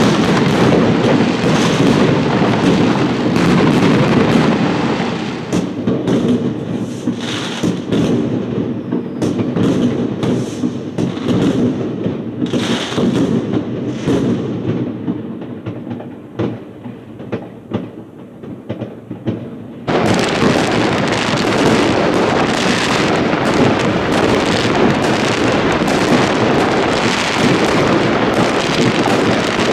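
Fireworks going off, many at once: a dense run of bangs over steady crackling. About a third of the way in it thins to scattered, more distant bangs, then about two-thirds through it is abruptly loud and dense again.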